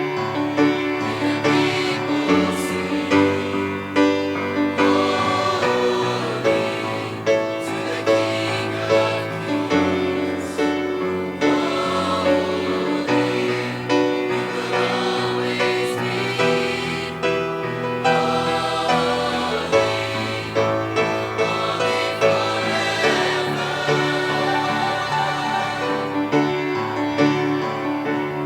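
Choir singing a gospel worship song in harmony over a steady beat.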